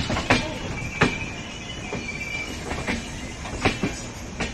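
Passenger train coaches rolling slowly past, their wheels clacking over rail joints in slow, uneven clicks about a second apart, with a thin wheel squeal over a steady rumble.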